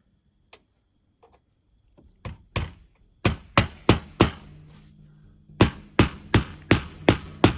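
Hammer driving a nail to tack a new skylight in place on the roof. Two light blows come first, then a quick run of four, a short pause, and from about halfway in a steady run of blows, about three a second.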